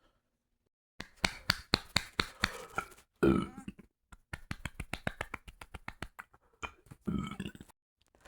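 A woman's two short, low burps, each coming after a run of quick, sharp clicks: a dozen or so before the first burp and a faster run of about twenty before the second.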